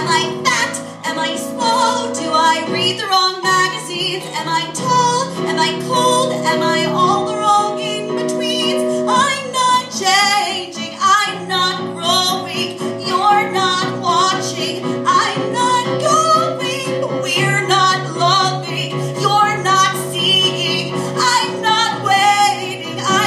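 A woman singing a comic cabaret song live in quick syllables, accompanied by held chords on a Korg Triton electronic keyboard that change every few seconds.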